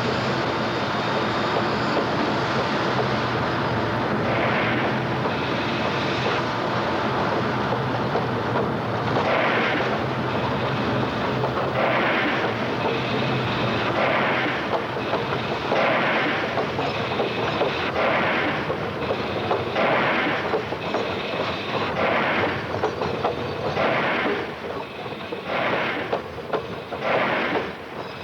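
Steam-era train running, a steady rumble with a regular burst of hissing noise about every two seconds.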